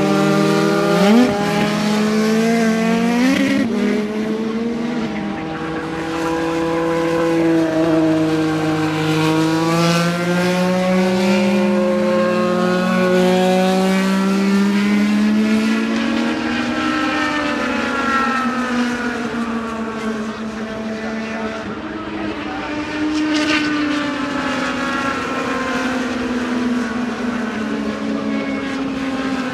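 IndyCar race cars' twin-turbo V6 engines running at speed as cars pass one after another, their pitch rising and falling with throttle and gear changes; a sharp rising rev about a second in and again near four seconds.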